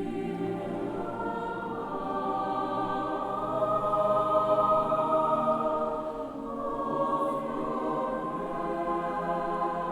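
Choir singing slow, sustained chords, swelling louder about four seconds in and easing off briefly a little after six seconds.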